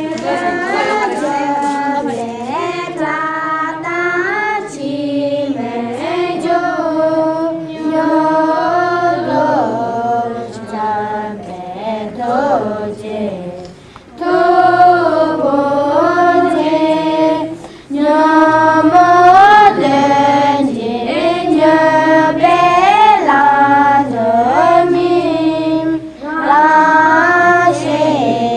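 High voices singing a melodic song together in unison, phrase after phrase, with short pauses between phrases.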